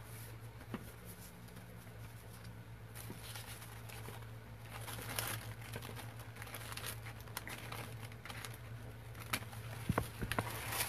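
Sheets of tracing paper and graphite paper being lifted and moved on a table, rustling and crinkling, with a few sharp light taps near the end over a low steady hum.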